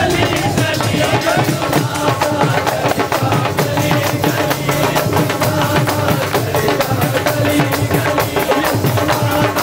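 A group singing a hymn while hand claps, tambourines and a drum keep a steady fast beat.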